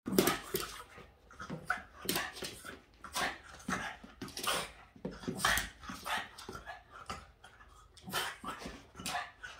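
A Boston terrier making agitated noises in short, noisy bursts about once a second, upset at a squeegee window cleaner moving in front of it.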